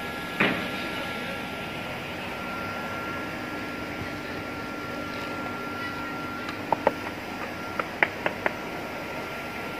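Engineered wood parquet panels being laid and fitted together on foam underlay: one solid knock about half a second in as a panel is set down, then a quick run of sharp wooden taps around seven to eight seconds in as the joint is worked closed. A steady mechanical hum sits underneath throughout.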